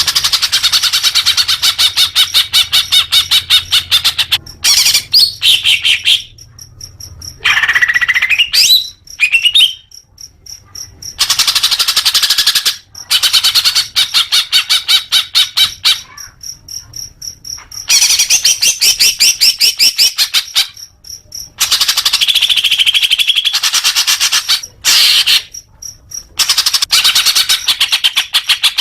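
Cucak hijau (green leafbird) singing: long bursts of fast, rapidly repeated chirping notes broken by brief pauses, with a few sliding whistles about eight to nine seconds in.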